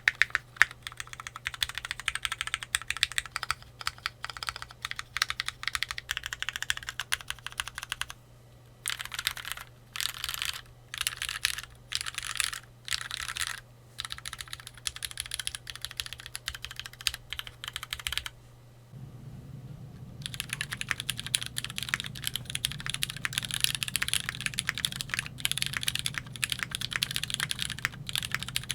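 Typing on a Keychron Q3 tenkeyless mechanical keyboard with lubed Cherry MX Black Hyperglide switches, first with a steel plate and then, after a short pause about two-thirds of the way through, with an aluminum plate. Steady runs of keystrokes alternate with short bursts of key presses separated by pauses.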